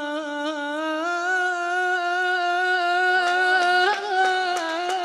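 A man singing an Iraqi folk song, drawing out one long note with a quick vibrato. The note steps up slightly about a second in and is then held steady. A few faint clicks can be heard near the end.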